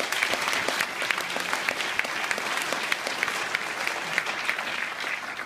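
Audience applauding, a dense steady patter of many hands clapping that eases slightly near the end.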